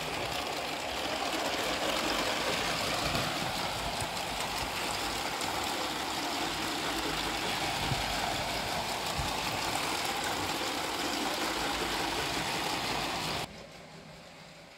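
Motorised Lego passenger train running along plastic Lego track: a steady motor whir mixed with wheel noise, cutting off suddenly about a second before the end.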